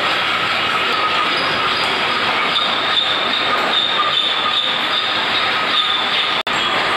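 Several hand files and hacksaws scraping on metal clamped in bench vices at once, making a steady rasping with a faint metallic squeal.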